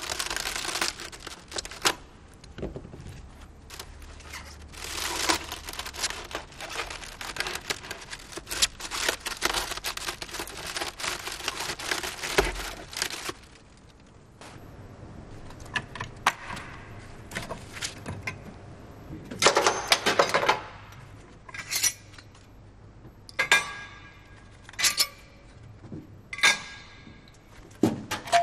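Crumpled aluminium foil crackling and rustling as it is scraped and handled. After a pause comes a series of separate sharp metallic clinks, some ringing briefly.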